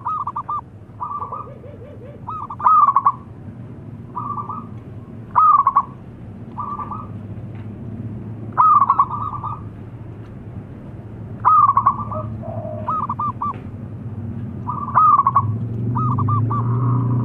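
Zebra dove (perkutut) cooing: a loud phrase of quick stuttering coos about every three seconds, five in all, with softer similar phrases between them. A low hum grows near the end.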